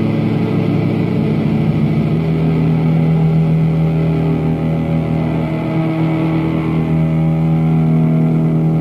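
Electric guitar played through a Fuzz Face distortion pedal, settling about two seconds in into a long, steady sustained note that holds to the end.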